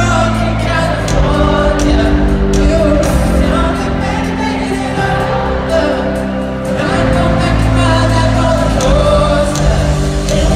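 Live pop band performing a song with lead vocals over a full band backing, recorded from the audience in a large hall.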